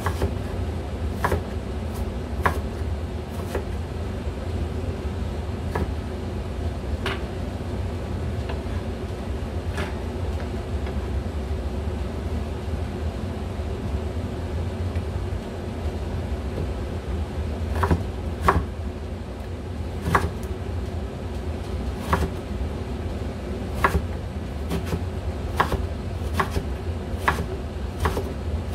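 Kitchen knife cutting Korean radish into strips on a wooden cutting board: sharp knocks of the blade on the board, a few scattered in the first ten seconds and then about one a second in the last ten seconds, over a steady low hum.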